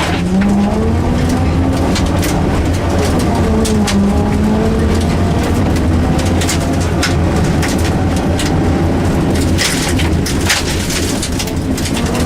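Rally car engine pulling hard at speed on a stage, its revs rising and falling through gear changes and lifts. Over the engine come repeated sharp clatters and knocks, thickest about ten seconds in.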